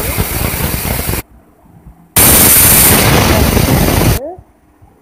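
Pressure cooker whistle letting off steam: a loud hiss for about a second that stops abruptly, then a second, louder hiss of about two seconds that dies away near the end. Each whistle is the cooker venting at full pressure, one of the three whistles counted for cooking the mutton.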